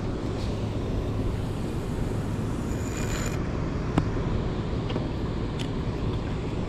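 Steady wind and water noise on a moving fishing boat, with a low steady hum underneath and a single sharp tick about four seconds in.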